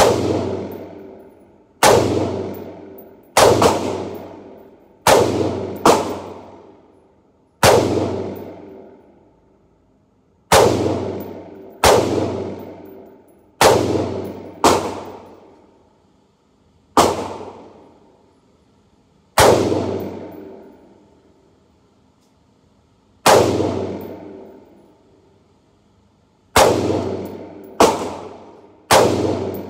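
Springfield Armory Saint Edge PDW, an AR-15 pistol, firing .223 Remington single shots at an uneven pace, about seventeen of them spaced from under a second to nearly four seconds apart. Each loud shot rings out in a long echo off the indoor range's walls.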